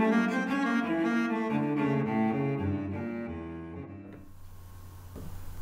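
Background score of slow bowed strings with low cello and double-bass notes, fading out about four seconds in and leaving a faint low hum.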